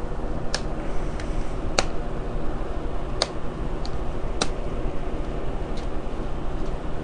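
Plastic clicks and snaps as the laptop's power-button top cover is pressed and worked into its clips. There are about eight sharp clicks at uneven intervals, the loudest near two, three and four and a half seconds in, over a steady low hum.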